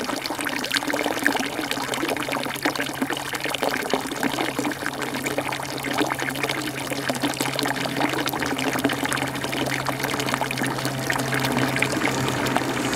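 Water pouring and trickling steadily, a continuous splashing wash dotted with small drips, over a faint steady low hum.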